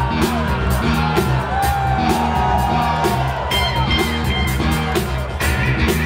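Loud breakbeat music from the DJ's sound system for the dancers, with a steady drum beat and held melodic notes over it.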